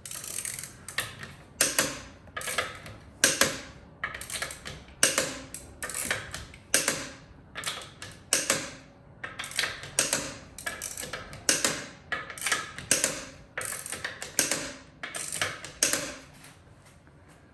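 Ratchet wrench (the torque wrench's ratchet head) tightening wheel lug nuts, clicking through short back-and-forth strokes about once a second.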